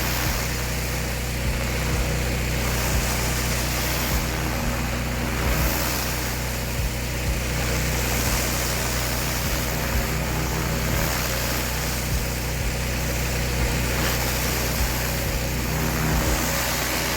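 Pressure washer's engine running steadily under load, with a constant hiss over it and a few faint ticks.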